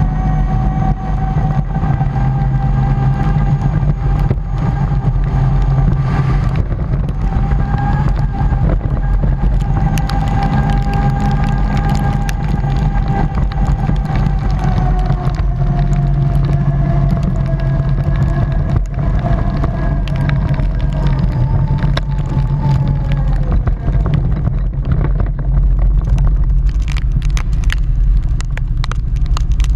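Can-Am quad bike's engine running at a steady cruising pace with wind noise over the camera. The engine note sinks as the quad slows after about twenty seconds, and near the end short clicks and crackles come up from the loose gravel under the tyres.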